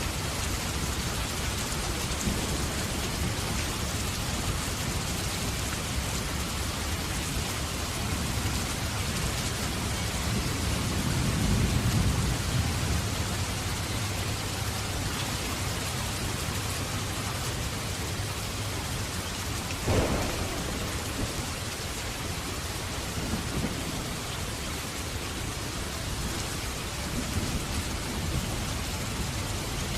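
Heavy rain falling steadily, with thunder: a low rumble swelling about ten seconds in, and a sharp thunderclap about twenty seconds in followed by a fainter rumble.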